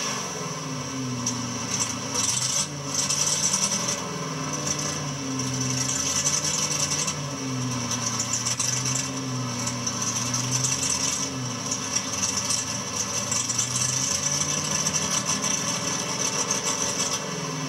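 Drag car's engine idling roughly, its pitch wandering slowly up and down every second or two, under a steady high hiss.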